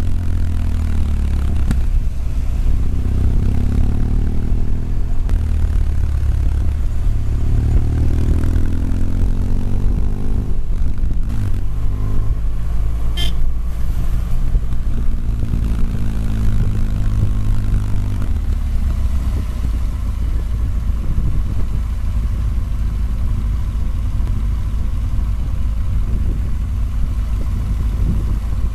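Motorcycle engine running under way, its pitch rising and falling with the throttle. From about two-thirds of the way through it settles lower and quieter as the bike slows right down.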